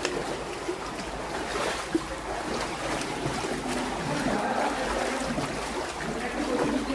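Shallow stream water flowing steadily through a rock gorge, a constant rushing noise.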